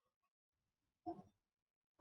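Near silence: room tone, broken by one brief faint sound about a second in.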